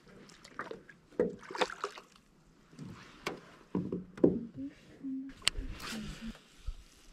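Knocks, clicks and rustling from handling a freshly caught fish in a small fishing boat, with a sharp knock about four seconds in and another about a second later. Low murmured voices under it in the second half.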